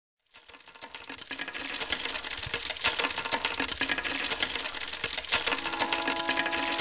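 Song intro fading in with a dense, rapid mechanical clicking and rattling, joined a little over five seconds in by several sustained held notes.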